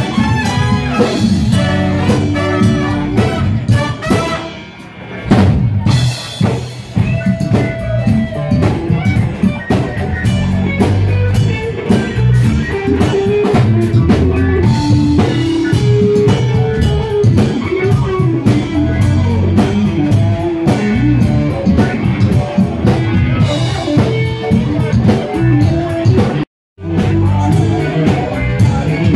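Live bar band playing a dance cover with drum kit and electric guitar, recorded on a phone from the dance floor. The level dips about four seconds in before the band comes back in hard, and the sound cuts out completely for a moment near the end.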